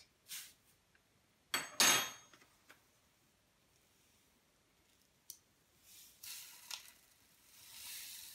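Sugar being poured from a folded paper into the necks of empty bottles: a pair of sharp clinks with a short ring about two seconds in and a lighter tap later, then the hiss of sugar grains running into a bottle near the end.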